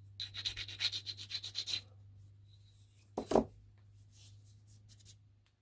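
A small brass clip rubbed back and forth against a hand-held abrasive stone to take the burrs off its back face: a quick run of short scraping strokes, about ten a second, lasting under two seconds. A single knock follows about three seconds in, then a few faint scrapes.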